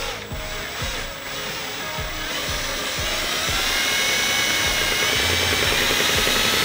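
Cordless drill boring into a snapped exhaust manifold stud in a Toyota 1HZ diesel's cylinder head, to make a pilot hole for an easy-out. It grinds steadily and gets louder, and a high whine from the bit cutting the steel stud rises slightly in pitch over the second half.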